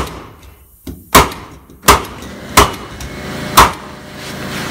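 Bostitch pneumatic flooring stapler firing staples into hardwood flooring: five sharp bangs, each under a second apart. A steady mechanical hum builds from about three seconds in.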